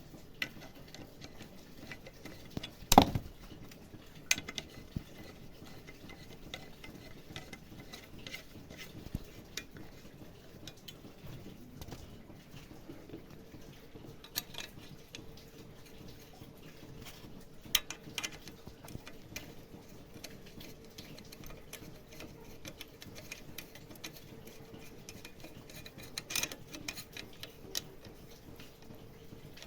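Scattered clinks and knocks of tools and metal parts being handled, the loudest a sharp knock about three seconds in, with a faint steady hum joining about halfway through.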